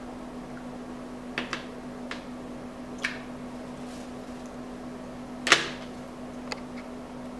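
Lips smacking and pressing together to spread freshly applied lip gloss: several short wet clicks, the loudest about five and a half seconds in, over a steady low hum.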